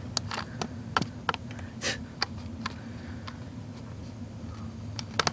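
Scattered small clicks and taps from handling cables and fasteners, with a brief rustle about two seconds in and a sharp double click near the end, over a steady low hum.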